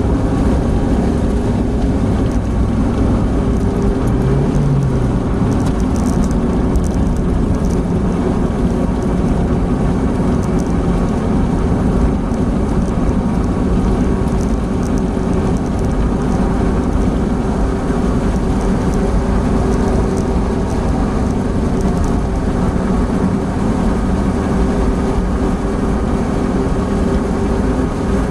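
Steady cabin noise of an Opel Blazer cruising at about 100 km/h: engine, tyre and wind drone with a steady low hum, heard from inside the car.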